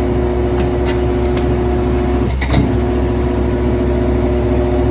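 Coats RC100 tire changer's turntable motor running to turn the wheel while the tire bead is pulled off the rim: a steady hum that stops with a click a little over two seconds in and starts again a moment later.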